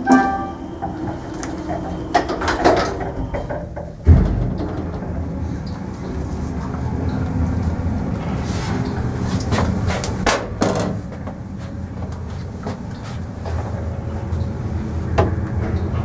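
Passenger elevator with a 4AH-180 electric motor: the cab's sliding doors shut with a few clunks, then about four seconds in a sharp low thud as the car sets off. The car then travels with a steady low hum and the odd click from the shaft.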